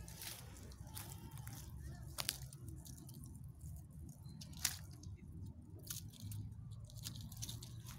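Dry twigs and leaf litter crackling, with several sharp clicks and snaps scattered through, over a low steady rumble.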